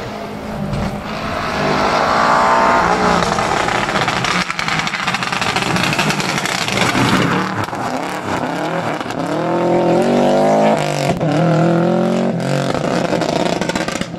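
Subaru Impreza rally car's engine revving hard, its pitch climbing and dropping several times with gear changes and lifts for the corners, with a few sharp cracks in between.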